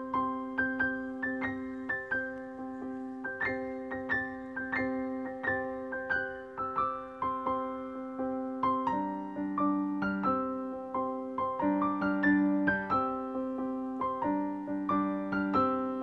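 Background music: a piano-like keyboard playing a steady run of struck notes over held chords, the harmony shifting about nine seconds in.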